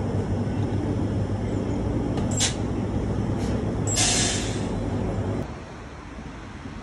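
City street traffic: a steady low engine rumble with two short, sharp hisses, about two and a half and four seconds in. The sound drops suddenly to quieter street noise about five and a half seconds in.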